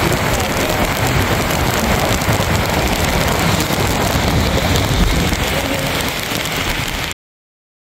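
Heavy rain falling steadily on a car, heard from inside the cabin. It cuts off abruptly near the end.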